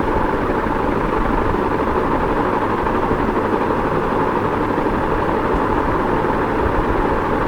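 Ceiling fan running steadily: an even rush of air from the turning blades over a low rumble, with no change in speed.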